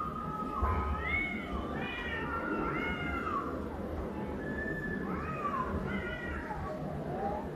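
Two domestic cats yowling at each other in a territorial standoff: a run of drawn-out, rising-and-falling wails about once a second, with a short lull midway.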